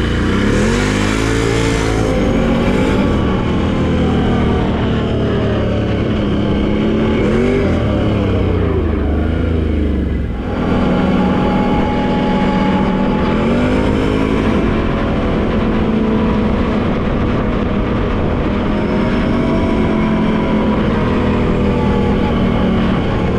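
Quad bike engine running under way, its note rising and falling repeatedly as it accelerates and eases off, with a brief drop about ten seconds in.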